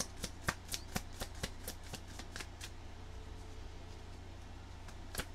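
A tarot deck being shuffled by hand, the cards tapping together about four times a second, stopping for a couple of seconds midway and starting again near the end.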